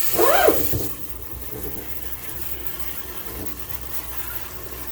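Kitchen sink sprayer blasting water onto a washable air-conditioner filter, with a short pitched squeal over it at the start; the spray cuts off about a second in, leaving quieter running water.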